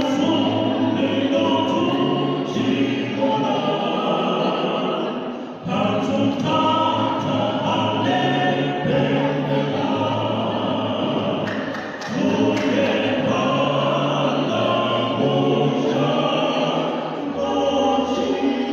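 Vocal quartet singing in harmony, with short pauses between phrases about six and twelve seconds in.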